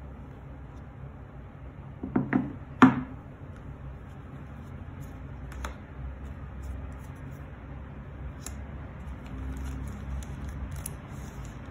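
Hands unpacking a pipe's cardboard presentation box and paper inserts: a few sharp knocks about two to three seconds in as the box is handled and opened, then faint scattered clicks and crinkles of paper and a plastic sleeve being handled.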